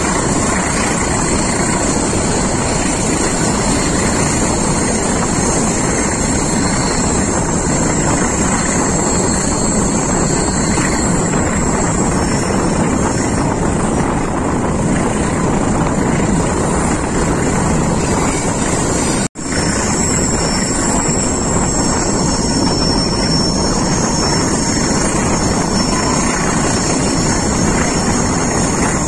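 Moving passenger train heard from an open coach door: loud steady rush of wind and rolling wheels on the rails, with thin steady high tones over it. The sound drops out for an instant about two-thirds of the way through.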